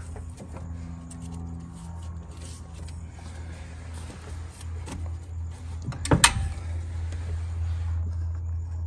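Faint clicks and handling noises of a serpentine belt being worked over the alternator pulley with a half-inch breaker bar on the belt tensioner, over a steady low hum. About six seconds in comes one sharp clack, the loudest sound.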